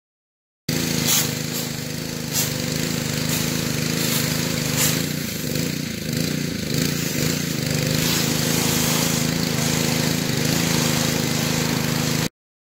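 Gas pressure washer running: its small engine drones steadily under the hiss of the water jet spraying, with several sharp clicks in the first half.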